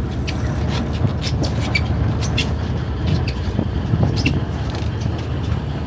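Boat engines running with a steady low rumble, with scattered short clicks and knocks over it.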